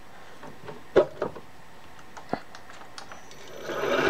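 A few light clicks and knocks, the loudest about a second in. Near the end a milling machine's spindle motor starts and comes up to a steady running hum with a faint whine.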